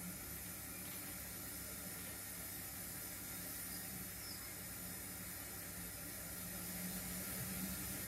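0 gauge model steam locomotive running slowly: a low steady hum under a constant hiss, the hum growing a little louder near the end.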